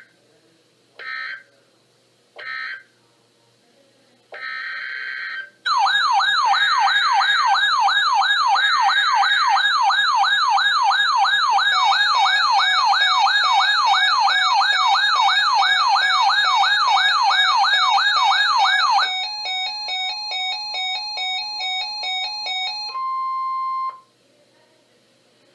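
NOAA Weather Radio SAME digital data bursts: three short end-of-message bursts, then a longer header burst opening the next warning. A loud, fast-warbling electronic alert siren follows for about thirteen seconds, then rapid pulsing beeps, ending in about a second of the steady warning alarm tone.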